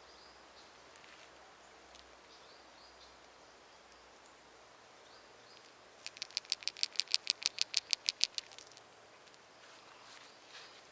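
A frog calling: a rapid, regular train of sharp high clicks, about seven a second, lasting about two and a half seconds, over a faint steady high-pitched background whine.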